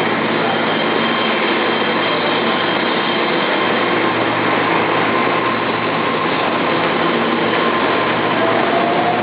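Keihan 3000 series electric train running: a steady rolling noise with a few faint steady whines, one rising slightly near the end.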